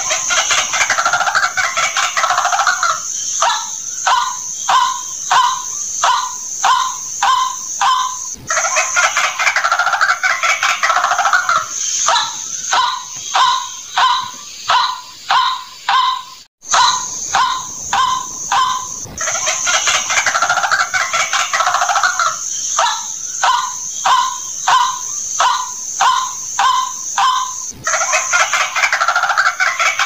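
White-breasted waterhen calling, a recorded call of the kind played as a lure: runs of loud, evenly repeated short notes, about two a second, alternate with bouts of harsh chattering. A steady high-pitched hiss runs underneath, and the sound cuts out briefly about halfway through.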